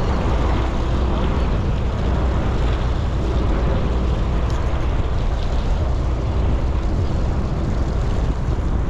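Steady low drone of a sportfishing boat's engine running underway, with wind noise.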